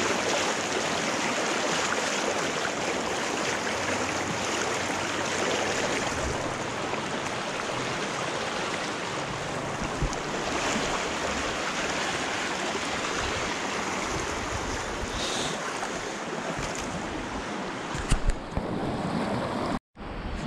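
Shallow, stony stream rushing and splashing around bare feet wading through it: a steady rush of water, with a few knocks near the end.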